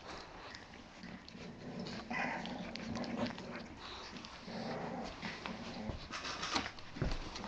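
Bulldog puppy chewing kibble, with scattered short crunching clicks, and a low drawn-out vocal sound from her through the middle.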